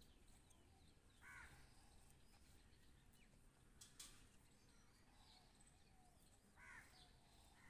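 Near silence: room tone with two faint, short animal calls, about a second in and near the end, and a soft click about four seconds in.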